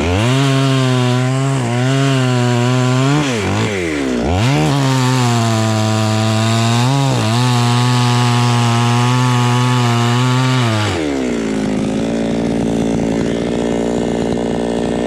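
Chainsaw running at high revs, cutting into a coconut tree trunk, with the revs wavering as it cuts. The throttle is let off and opened again about four seconds in, and the saw drops to a steady idle about eleven seconds in.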